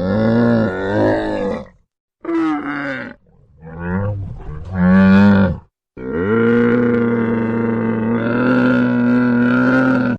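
A large animal calling: three shorter calls that waver in pitch, then one long, steady call held for about four seconds.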